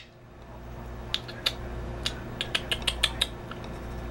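A young caged songbird making a string of short, sharp clicking calls, a few spaced out and then a quicker run of them about two and a half seconds in.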